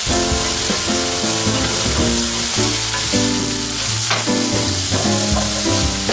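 Diced bacon, onion and red bell pepper frying in a cast-iron skillet: a steady sizzle that starts abruptly, with the food stirred by a wooden spatula. Background music plays underneath.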